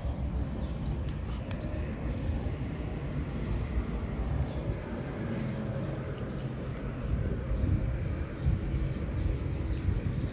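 Steady low rumble of street traffic, with faint, quick clicks of a cat chewing chunks of wet food close by.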